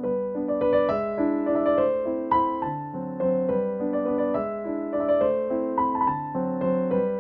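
Background piano music: a melody of single notes over sustained chords.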